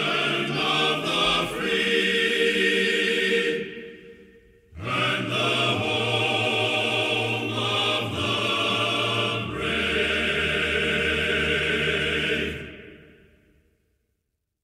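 Outro music of held notes; it stops about four seconds in, comes back half a second later, and fades out near the end.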